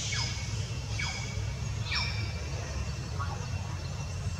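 Three short high calls, each falling quickly in pitch, about a second apart, over a steady low rumble.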